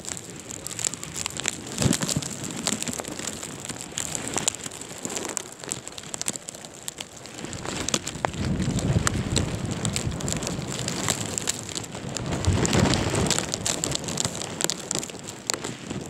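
Strong blizzard wind gusts buffeting the microphone, with deep rumbling surges about halfway through and again near the end. A constant crackle of sharp ticks runs through it.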